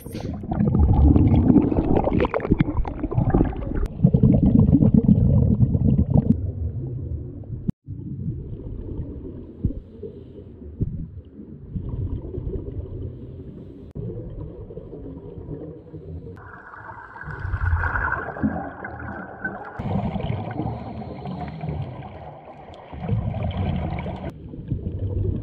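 Scuba divers breathing through their regulators, heard underwater through a camera's waterproof housing: rough, rumbling bursts of exhaled bubbles, loudest in the first few seconds, with hissing breaths in between.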